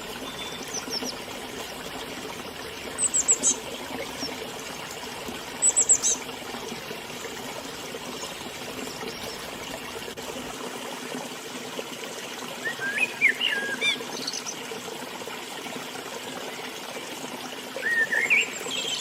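A river flowing steadily, with small birds chirping over it. There are short, high, downward-sliding chirps about three and six seconds in, and lower warbling phrases around the middle and again near the end.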